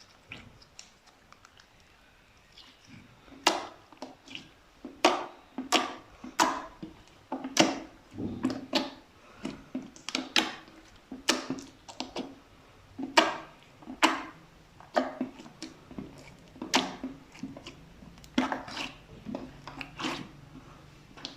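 Slime being pressed and mixed by hand: wet squelches and sharp air pops, about one a second, starting a few seconds in after a quieter stretch.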